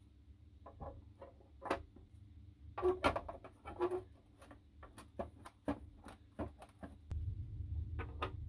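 Plastic and metal casing parts of a tabletop water dispenser being handled and fitted: scattered light clicks and taps, with a bunch of sharper knocks about three seconds in, over a low steady hum that gets louder near the end.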